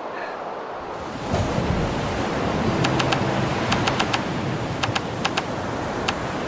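Ocean surf breaking and washing up a beach, the rush of water swelling about a second in, with short high ticks scattered through it.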